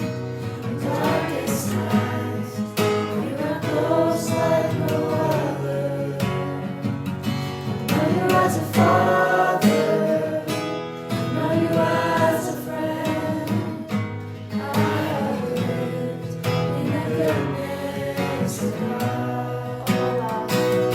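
A group of voices singing a worship song over guitar accompaniment.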